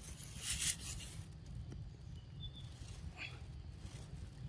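Long-tailed macaque biting and chewing corn on the cob: short noisy bursts, the loudest about half a second in and a weaker one around three seconds in, over a low steady rumble.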